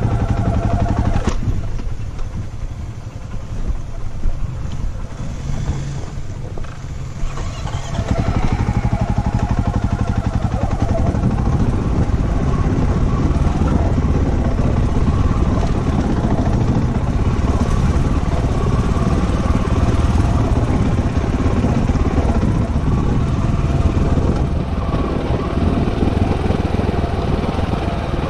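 Off-road motorcycle engine running on a rough dirt track. It eases off to a quieter, lower note for a few seconds near the start, then pulls steadily again.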